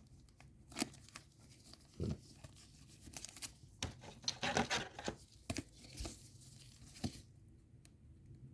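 Trading cards being handled and slid against one another: short scattered rustles and light clicks, with a longer rustle about four and a half seconds in.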